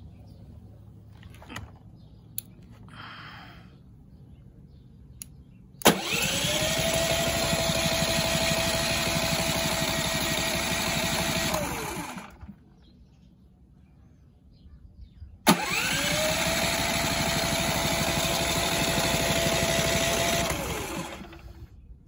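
Cummins Onan P4500i generator's electric starter cranking the engine twice, about six seconds each. Each try opens with a sharp click, then a whine rises quickly, holds and winds down as the engine turns over without ever firing: it is getting no spark, a fault the title puts down to a bad indicator light part.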